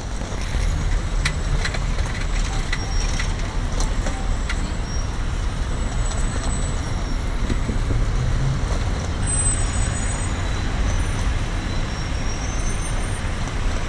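Road traffic of cars and trucks running beside a pedestrian walkway: a steady low rumble, with a few sharp clicks between about one and four seconds in.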